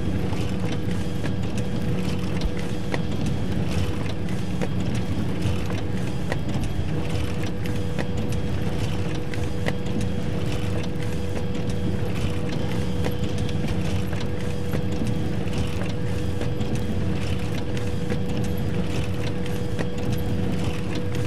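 Photocopier running continuously: a steady motor hum with a thin steady tone, and a soft swish from the copy cycle repeating every second and a half to two seconds.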